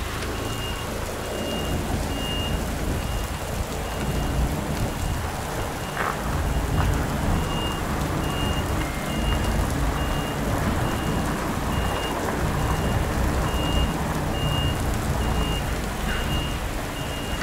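A truck's reversing alarm beeping steadily, about two high beeps a second, as the DAF XF truck backs up. Underneath runs the low rumble of its diesel engine and the hiss of rain.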